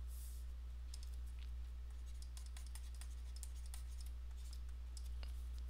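Faint, irregular light clicks and scratches of a stylus writing on a tablet, over a steady low electrical hum.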